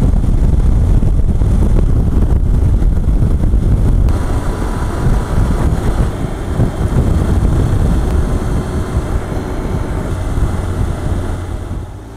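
Wind rush on the microphone and road noise from a motorcycle cruising at highway speed, with a dense low rumble. The rush eases near the end as the bike slows.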